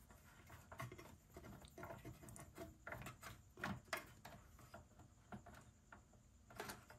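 Faint, irregular small clicks and scrapes of a tiny screwdriver working a small screw out of a transceiver's control board, a few slightly louder clicks mid-way and near the end.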